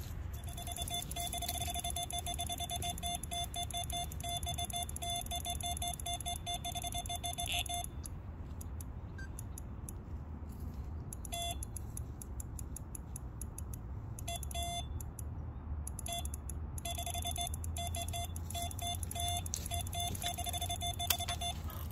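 Carp-fishing bite alarm beeping rapidly in long runs, with a fast ticking between them. It signals a fish taking line off the rod.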